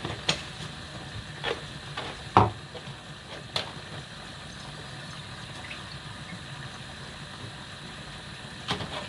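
Milk being poured from a plastic jug into a pot of boiled potatoes, over a steady hiss, with a few short knocks, the loudest about two and a half seconds in.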